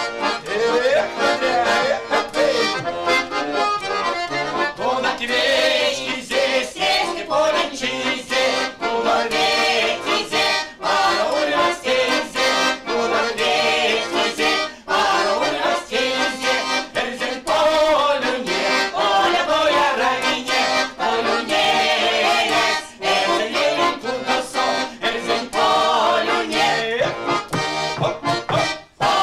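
A women's folk ensemble singing a Mordovian folk song to button accordion accompaniment.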